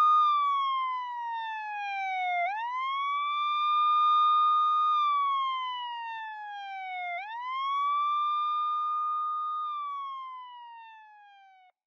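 A wailing siren. Its pitch sweeps up quickly, holds, then slides slowly down, repeating about every five seconds, and it fades away and cuts off near the end.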